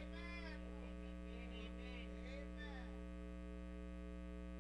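Steady electrical mains hum with many evenly spaced overtones, with a faint voice in the background during the first three seconds.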